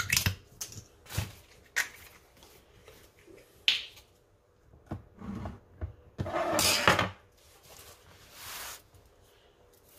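A bottle of honey mustard being opened and squeezed: a few light clicks as the cap is twisted and lifted off, then the bottle squeezed, with a longer, loud rush of sputtering noise about two-thirds through and a softer squirt after it.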